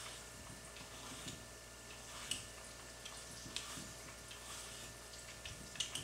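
Vegetable peeler scraping strips of skin off a zucchini on a wooden cutting board: a few short, soft scrapes and clicks, over a faint steady hum.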